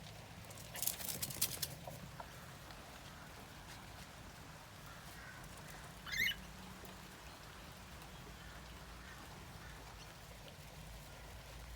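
A small pet bird bathing in wet fern fronds: a brief burst of rustling and fluttering about a second in, then a single short, wavering chirp about six seconds in.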